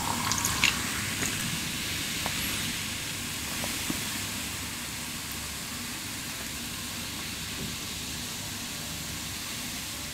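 A drink being poured into a glass: a steady stream of liquid that slowly fades, with a few light clicks in the first second.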